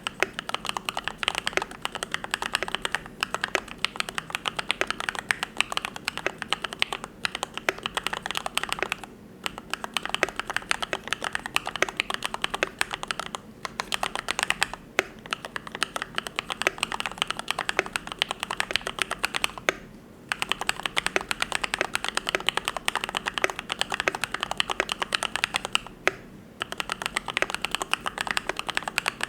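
Continuous fast typing on a YMD75 V3 custom mechanical keyboard fitted with Gateron Yellow linear switches, a dense run of keystroke clacks broken by a few brief pauses.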